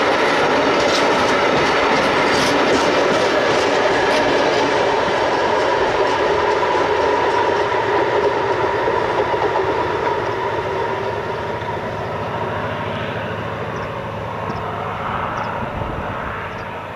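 Train rolling past on a grade, wheels clacking over the rails while the wheel flanges hold a steady squeal. The sound fades after about ten seconds as the train moves away.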